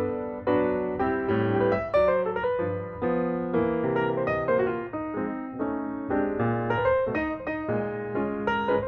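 Background piano music: a melody of quick, separately struck notes over lower chords.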